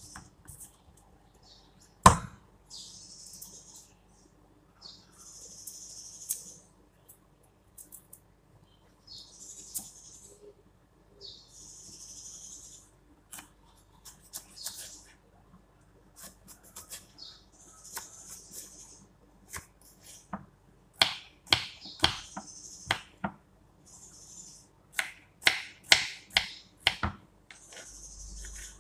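Kitchen knife cutting a carrot on a wooden chopping board. First come a series of scraping strokes, each about a second long, as the blade saws lengthwise through the carrot. Then, in the last third, comes a run of quick sharp knocks of the blade on the board as the strips are chopped into pieces, with one loud single knock about two seconds in.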